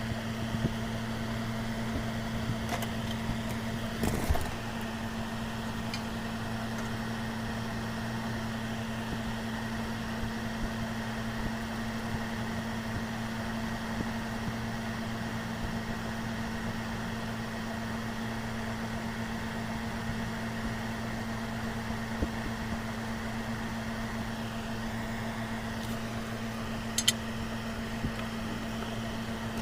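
Microwave-oven transformer humming steadily at mains frequency, with a few sharp clicks, a cluster about four seconds in and the loudest near the end.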